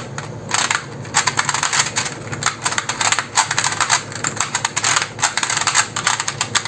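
Dense run of small plastic clicks from the dials of a Rubik's Clock-type puzzle being turned.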